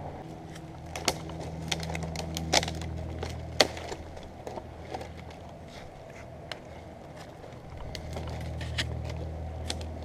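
An engine idling steadily, swelling a little twice, with a handful of sharp clicks and snaps in the first four seconds, the loudest about three and a half seconds in.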